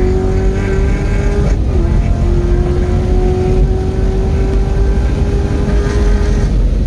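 2018 Chevrolet Camaro ZL1 1LE's supercharged 6.2-litre V8 at full throttle, heard from inside the cabin under heavy road and wind rumble. The engine note climbs, dips for an upshift about a second and a half in, then climbs again. Near the end it drops away as the driver lifts off to brake.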